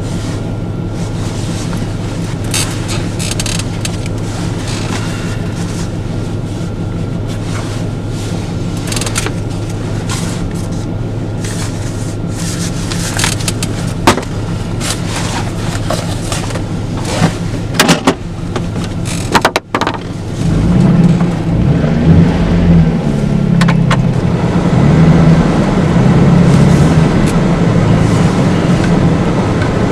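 Steady rumble of a moving vehicle heard from inside the cab, with a few sharp clicks. It breaks off for a moment about two-thirds of the way in, then comes back louder and more uneven.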